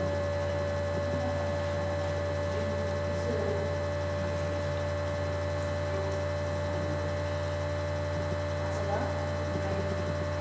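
Steady low electrical hum with faint room noise; the instruments are not playing.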